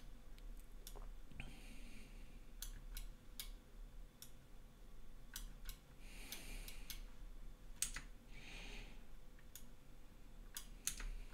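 Scattered sharp clicks from a computer mouse and keyboard, about a dozen spread unevenly, some close together in pairs.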